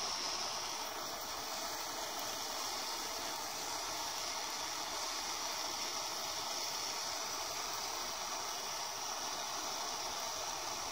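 Handheld gas torch burning with a steady hiss, its flame held on an apple's skin.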